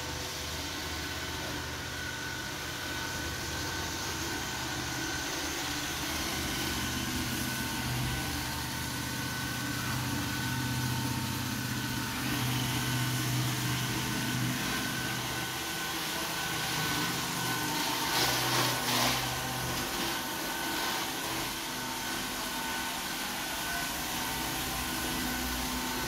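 iRobot Roomba s9 robot vacuum running as it drives across a hardwood floor: a steady motor hum with a high, steady whine. A short patch of clicks and knocks comes about two-thirds of the way through.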